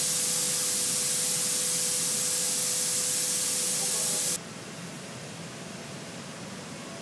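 Steady loud spray hiss from paint-shop robots coating a car body, with a faint steady tone underneath. About four and a half seconds in it cuts off abruptly, leaving a quieter steady hiss of air.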